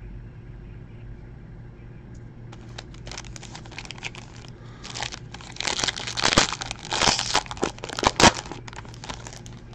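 Foil wrapper of a 2017 Topps Tier One baseball card pack being torn open and crinkled by hand: sharp crackling that starts a couple of seconds in, is loudest about two thirds through, and dies away near the end, over a low steady hum.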